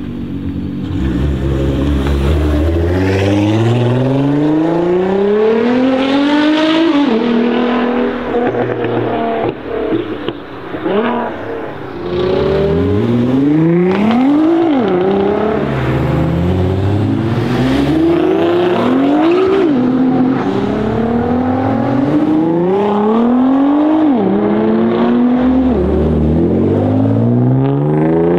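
Heavily modified 1000-plus-horsepower Nissan GT-R R35's twin-turbo V6 accelerating hard and loud. The engine note makes one long climb in pitch, eases off for a few seconds, then climbs again in a run of shorter sweeps, each cut off by a sharp drop.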